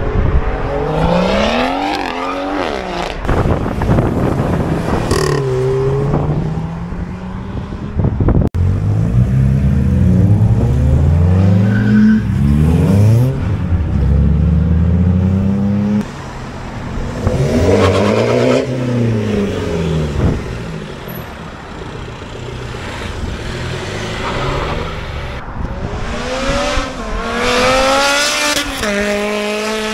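Cars accelerating hard one after another down a straight. Each engine revs up through the gears, its pitch climbing and then dropping back at every shift. About halfway through, one car passes close by, its pitch rising and then falling away.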